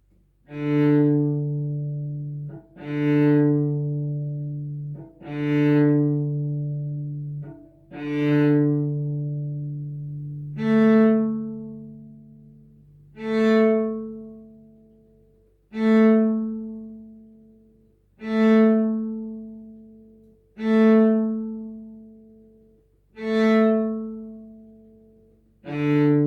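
Cello played with long, slow bow strokes: four notes on one low pitch, then six on a higher pitch, each lasting about two and a half seconds and fading toward its end.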